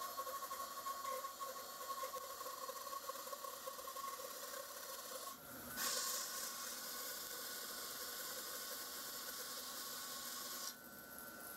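Harvey C14 bandsaw running and resawing a thick board, its thick, aggressive blade cutting through the wood as a steady hiss over the machine's steady hum. The cutting hiss gets brighter and louder about six seconds in and drops off abruptly near the end.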